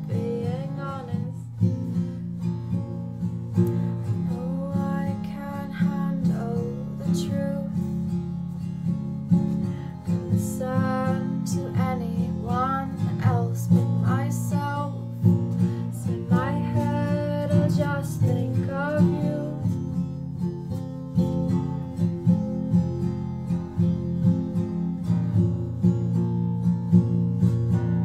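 Acoustic guitar strummed steadily, with a woman singing over it for roughly the first two-thirds; the last several seconds are guitar alone.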